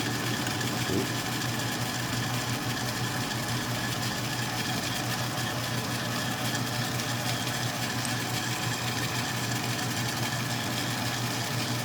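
Atlas 10-D metal lathe running steadily with a steady low hum, taking a light facing cut on the end of a bolt held in the 3-jaw chuck.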